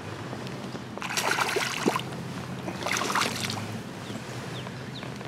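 Hooked largemouth bass splashing and thrashing at the water's surface while being played in, in two bursts: one about a second in and another around three seconds in.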